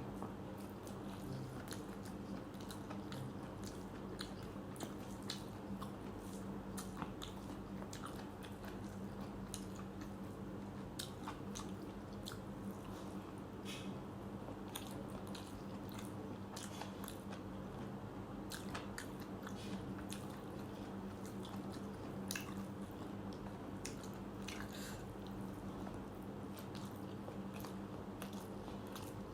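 A person chewing and eating, with many short wet mouth clicks and smacks scattered throughout, over a steady low hum.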